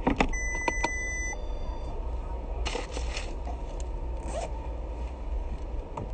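A zipper on a cloth clutch purse being pulled open and the purse handled, with scraping and several clicks. A short steady electronic tone sounds about half a second in, over a low steady hum.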